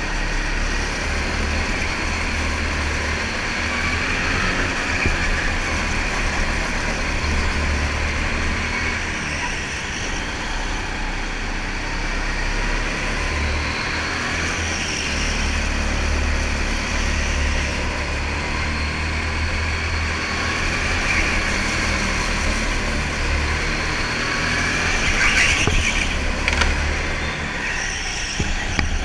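Go-kart's motor running at racing pace, heard from the driver's seat, its pitch rising and falling as the kart brakes and accelerates through the corners. A few short sharp knocks come near the end.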